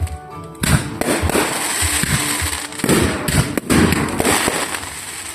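Fireworks going off: a rapid, irregular string of bangs and crackling, many reports overlapping, starting loudly just under a second in and thickest about three to four seconds in.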